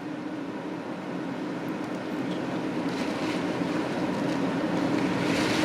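Strong storm wind buffeting a motorhome, with a steady rumble and a low hum underneath that slowly grow louder.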